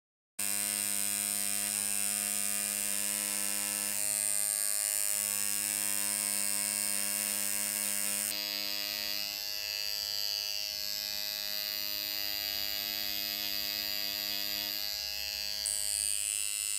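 Tattoo machine buzzing steadily as the needle works ink into skin, its tone shifting slightly a few times.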